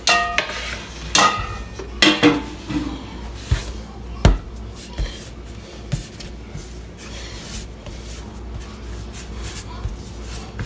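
Kitchen metalware clattering: a few ringing metallic clinks in the first couple of seconds, then scattered short knocks and taps.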